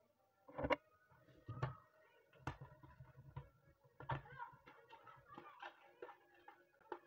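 About four light knocks of dishes and containers on a tabletop, then chopped spinach tipped and scraped from a ceramic platter into a glass bowl, with soft rustling and small clinks.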